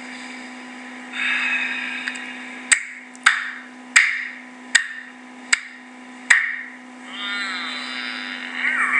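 Six sharp knocks, evenly spaced about three-quarters of a second apart, over a steady electrical hum.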